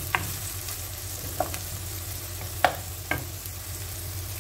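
Sliced onions sizzling in hot cooking oil in a nonstick wok, stirred with a wooden spoon that knocks against the pan about four times, the loudest knock a little past halfway.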